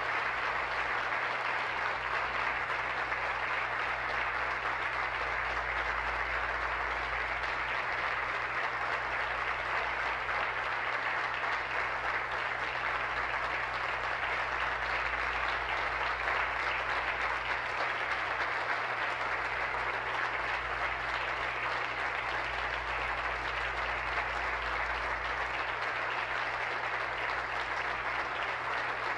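Sustained applause from a chamber full of legislators, many standing, clapping steadily to welcome a newly seated member.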